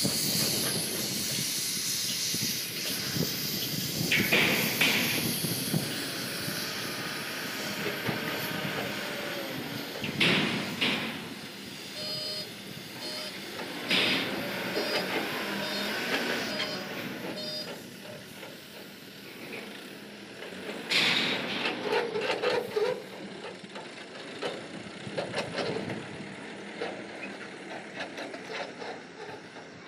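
Escorts TRX15 pick-and-carry crane's Tata diesel engine running as the crane drives and manoeuvres, with short hissing bursts every few seconds. About halfway through, a run of short high beeps like a reversing alarm.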